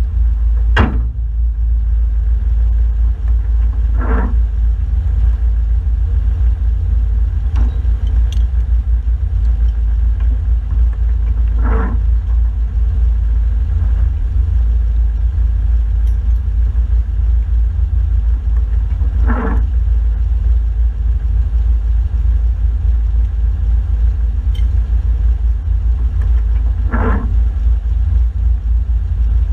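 An off-road 4WD's engine idling while the vehicle stands still, heard as a steady low rumble through the body-mounted camera. A few brief, sharper sounds break through at irregular intervals of several seconds.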